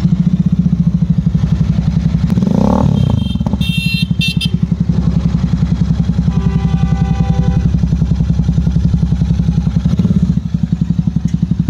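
Royal Enfield Super Meteor 650's parallel-twin engine idling through an aftermarket Dug Dug Cruiser silencer: a steady, fast, punchy thump, with one short rise in revs about two and a half seconds in.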